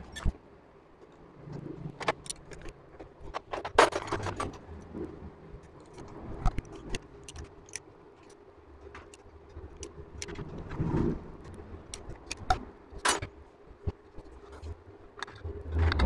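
Small metal hand tools and loose engine parts clinking and tapping against the aluminium cylinder head and rocker gear of a Honda CG125 engine during assembly, in scattered sharp clicks with handling rustle between them.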